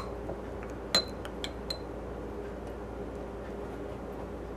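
Metal parfait spoon clinking against a crystal champagne flute while spooning pudding in: about four sharp clinks in the first two seconds, the loudest about a second in with a short glassy ring.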